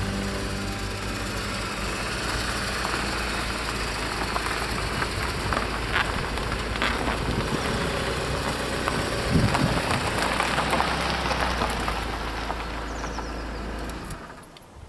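Honda Civic hatchback's engine running as the car moves off slowly, with tyres crunching over gravel and a few sharper cracks of stones; the sound cuts off shortly before the end.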